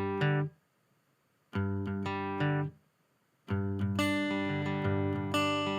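Acoustic guitar strummed through a Joyo AC-20 acoustic amplifier with no effects, a clean, dry tone. Two short strummed phrases are each cut off abruptly with a second of silence after them, then steady chord strumming starts about three and a half seconds in.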